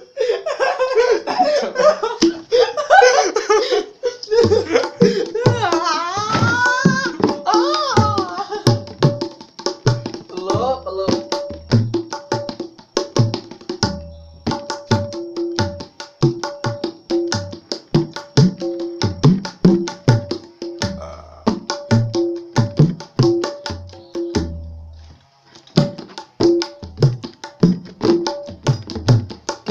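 Laughter and voices for the first few seconds, then gendang hand drums played in a dangdut beat: deep bass thumps mixed with higher ringing slaps in a quick, steady rhythm. The playing breaks off briefly about 25 seconds in and then picks up again.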